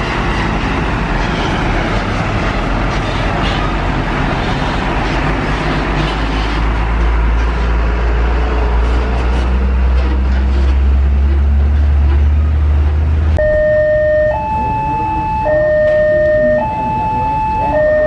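A coach bus's engine and passing road traffic, with a low engine drone swelling in the middle. After an abrupt change about two-thirds of the way through, a railway level-crossing warning alarm sounds, two alternating tones each held about a second.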